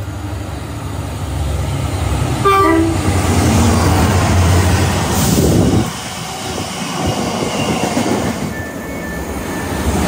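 A freight train sounds a short two-tone horn blast, high note then low, as it approaches. Its locomotive and box wagons then pass with a heavy low rumble and wheel clatter.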